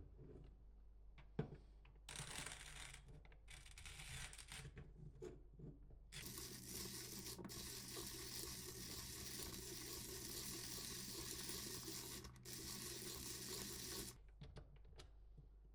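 King Grinder P2 hand burr grinder crunching coffee beans as its handle is turned, set to a very fine grind. It starts in short spells, then grinds steadily for about eight seconds and stops near the end.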